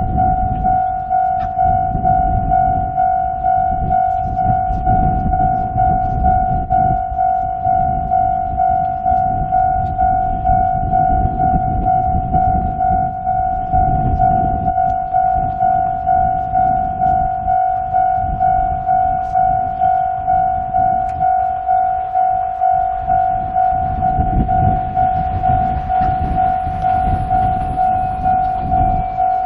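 Japanese railway level-crossing alarm with the Tokai-type electronic tone, ringing one steady note over and over in even strokes. Strong wind rumbles on the microphone underneath. A hissing noise builds near the end.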